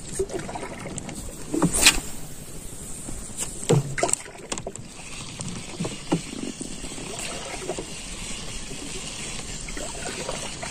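Water lapping against the hull of a small wooden outrigger canoe, with a few sharp knocks on the boat.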